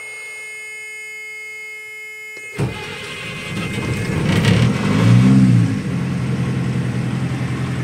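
BMC 1.5-litre marine diesel engine starting: a steady warning buzzer tone sounds with the ignition on and cuts off about two and a half seconds in. The engine then turns over and catches, revs up and back down briefly, and settles into a steady idle. It starts cleanly.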